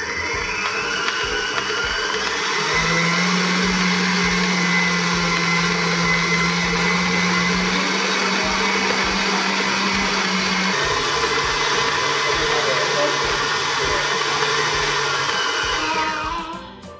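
Electric stand mixer running, its beater mixing mooncake dough in a stainless steel bowl. Its steady motor hum drops to a lower pitch about eleven seconds in, and the machine winds down just before the end.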